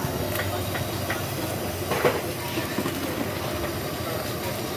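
Steady rushing hiss of a busy pad thai cooking stall, with a few light metal clinks and one louder clatter about two seconds in.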